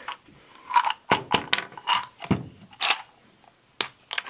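Small clear plastic driver-bit case being handled and opened on a workbench: a string of short plastic clicks and knocks, with bits rattling inside.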